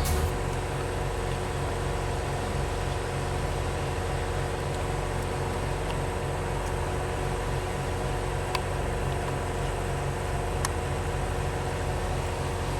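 Philips EP2231 automatic coffee machine running with a steady mechanical hum, with two faint clicks in the second half.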